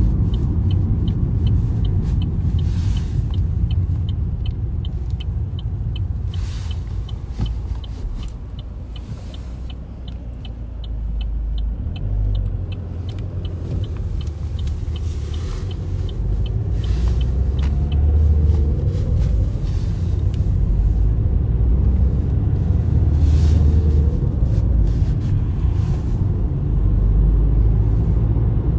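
Car cabin while driving: steady engine and tyre rumble, with the turn-signal indicator ticking evenly, about three clicks a second, until it stops about halfway through. A few brief whooshes come through, and the rumble grows louder in the second half.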